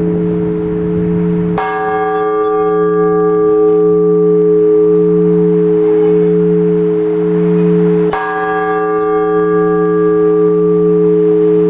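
Large Orthodox church bell struck twice, about six and a half seconds apart, each stroke ringing on in a long hum that wavers slowly. The single bell's slow, even strokes fit the blagovest, the ringing that announces the start of a service.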